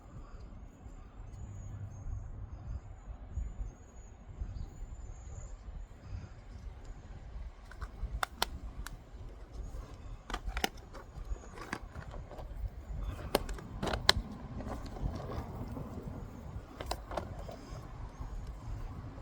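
Outdoor ambience with a steady low rumble and faint bird chirps early on. From about eight seconds in comes a string of sharp clicks and taps, with the loudest pair near fourteen seconds.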